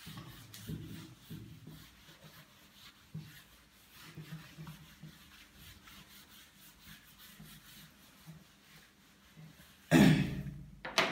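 Duster wiping a whiteboard, faint and uneven. Near the end a man coughs twice, loud and sudden.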